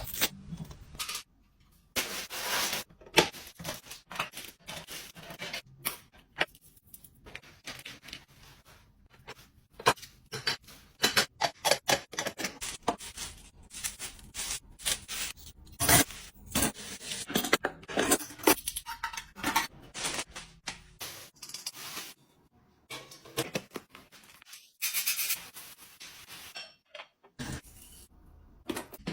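Restocking ASMR handling sounds: containers and packaging picked up, set down and arranged, giving irregular clicks, taps, rustling and scraping.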